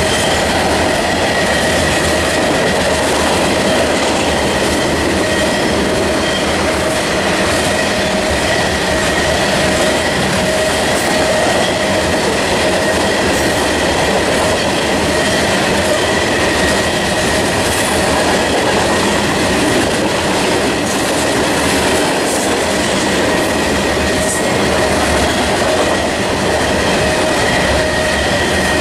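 Loaded coal cars of a long freight train rolling steadily past: the continuous rumble and clatter of steel wheels on rail, with a steady high whining tone over it.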